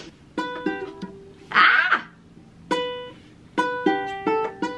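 Ukulele being plucked, single notes and small chords ringing out and fading one after another in a slow, halting pattern. A brief burst of noise about a second and a half in is the loudest moment.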